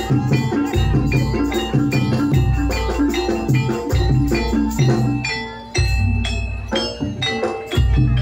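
Live gamelan music for a jaranan horse dance: struck metal percussion plays a busy pitched melody over drums and rattling percussion. A deep low beat comes round about every one and a half to two seconds.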